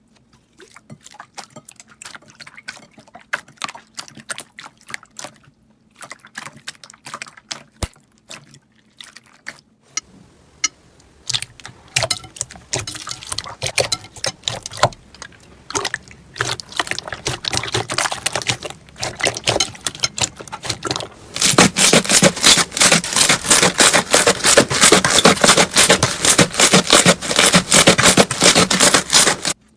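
Slime squished and worked by hand, giving wet clicks and pops. They start sparse and come thicker about halfway through. About two-thirds of the way in they turn into a loud, dense crackling that stops abruptly at the end.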